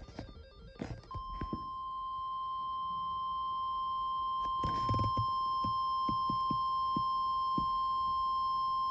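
NOAA Weather Radio's 1050 Hz warning alarm tone, the alert that comes before a spoken weather warning. A single steady high tone starts about a second in, after a few clicks, with scattered clicks and a brief thump under it about halfway through.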